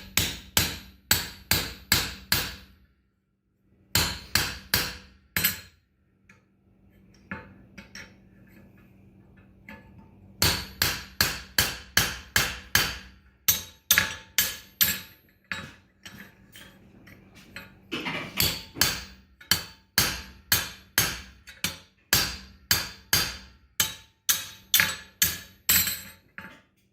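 Farrier's hammer striking a pritchel to punch and pitch the nail holes of a hot steel horseshoe on the anvil: ringing metallic blows in runs of several, about two to three a second, with brief pauses and a few lighter taps between runs.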